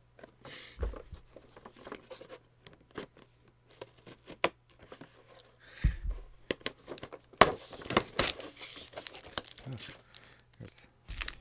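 A cardboard box and its packaging being opened by hand: tearing and crinkling with scattered sharp clicks and rustles, and a few dull thumps about a second in, around six seconds in, and near the end.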